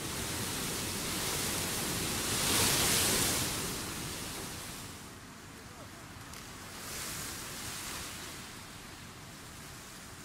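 Wind gusting through a field of silver grass, a rushing hiss that swells about three seconds in, drops off near five seconds and rises again around seven seconds.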